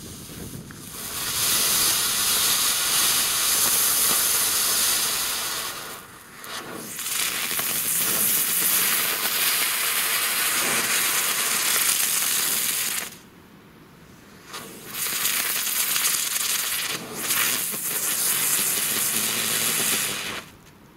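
Feistel Sternkreiselfontäne ground firework fountain hissing loudly as it sprays sparks. It starts about a second in, falters briefly, stops for about a second and a half, then hisses again before cutting off just before the end.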